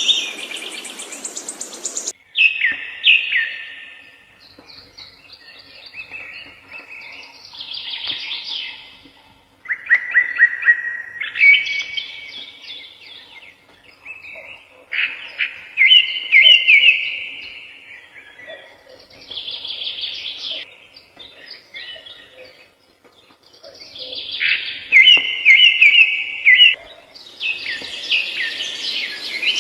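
A songbird singing short phrases of rapid chirping notes, about seven of them, with pauses of a second or two between. A background hiss stops abruptly about two seconds in and comes back near the end.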